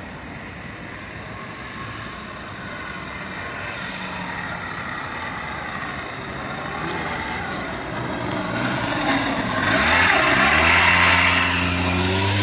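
A motor vehicle engine growing louder; about ten seconds in its pitch dips and rises again, then it settles into a steady hum.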